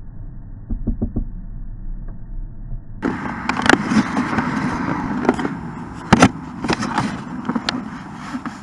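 Knocks, rubbing and rustling of a small action camera being carried and jostled by hand. The first few seconds are muffled with a low hum; from about three seconds in it turns louder and clearer, with many sharp knocks.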